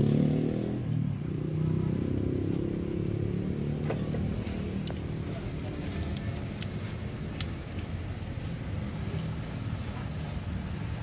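An engine running, easing down in pitch over the first second or two and then running low and steady, with a few sharp light clicks through the middle.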